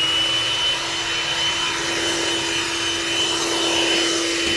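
Cordless battery leaf blower running at full speed: a steady high fan whine over rushing air. Its pitch climbs back up in the first moment, then holds steady.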